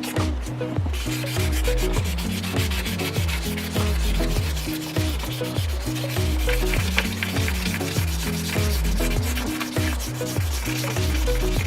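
Brass padlock body being hand-sanded with fine 1200-grit emery paper, quick back-and-forth rubbing strokes to take off rust and marks. Background music with a repeating bass line runs underneath.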